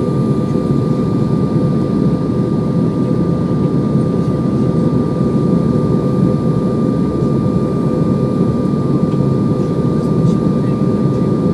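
Steady drone of an airliner in flight, heard as cabin noise on the approach to landing: engine and airflow noise with two steady tones over it, unchanging throughout.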